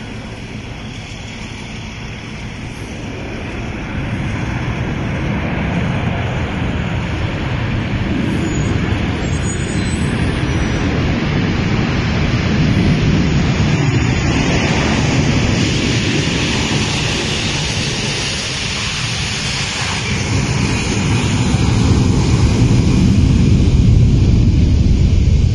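Cargo jet's engines rumbling during its landing, growing louder over the first several seconds and again near the end, with wind buffeting the microphone.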